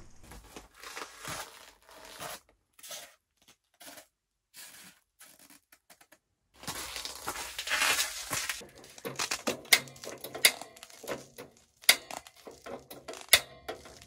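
Scuffing and crunching footsteps and rustling tent fabric as a person comes in through the door of an insulated ice-fishing tent, loudest about halfway through. Then a run of sharp clicks and knocks.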